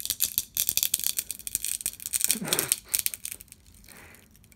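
Broken wooden drumstick, held together only by its stick tape, crackling in rapid dry clicks as it is flexed at the break; the crackling thins out in the last second or so.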